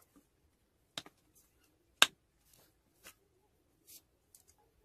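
A few sharp clicks and taps from cane kite sticks knocking together as string is tied around their crossing point, the loudest about two seconds in.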